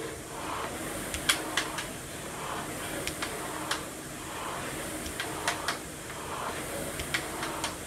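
Air-resistance rowing machine being pulled hard: the flywheel fan whooshes with each stroke, about one stroke a second, with sharp clicks scattered between strokes.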